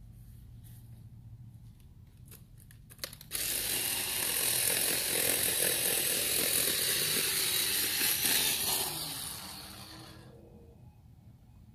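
Cordless electric chainsaw running. It starts suddenly about three seconds in, runs steadily for about six seconds, then winds down near the end.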